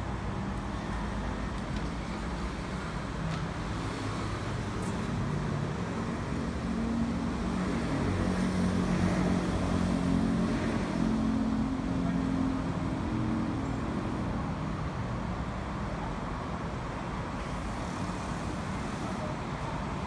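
Road traffic noise, with a motor vehicle's engine running and growing louder about eight to twelve seconds in, then fading back.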